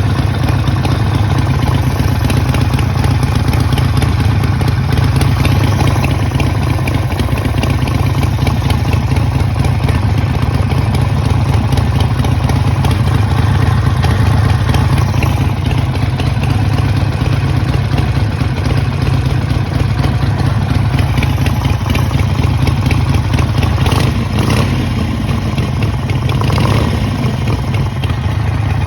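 Harley-Davidson Sportster's air-cooled V-twin engine running steadily at idle with a fast clatter, a noise the owner wonders may be rod knock.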